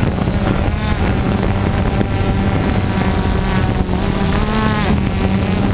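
DJI Phantom 2 quadcopter's four electric motors and propellers whining steadily, heard from the camera mounted on the drone, the pitch wavering up and down as the motors adjust speed.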